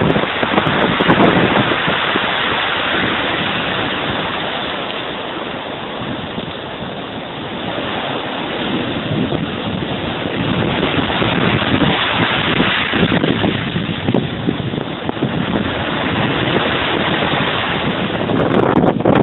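Sea waves breaking and washing ashore, with wind buffeting the microphone. The noise swells and eases, dipping in the middle and building again.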